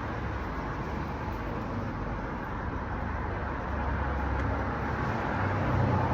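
Steady outdoor background noise: a low rumble with a broad hiss, like distant road traffic, with no distinct event standing out.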